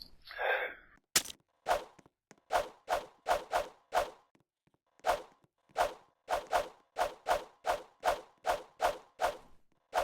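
A brief whoosh, then a run of nearly twenty sharp hits in quick, uneven clusters, with a short pause about halfway through.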